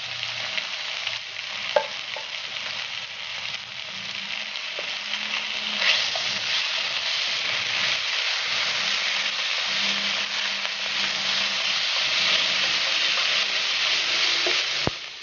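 Raw ground beef sizzling as it fries in a hot oiled pan with sliced hot dogs and onions, stirred and broken up with a spatula. A sharp tap comes near two seconds in, the sizzling grows louder about six seconds in, and it dips briefly near the end.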